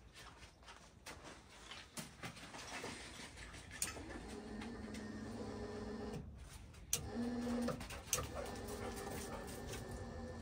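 A dog whining and panting, with a few clicks and knocks.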